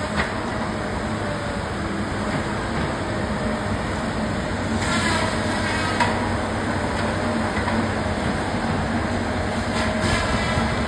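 John Deere tracked feller buncher running steadily, its diesel engine and hydraulics working as the machine swings and moves, with a clattering metallic rumble from the steel tracks. Brief thin metal squeals come about five seconds in and again near the end.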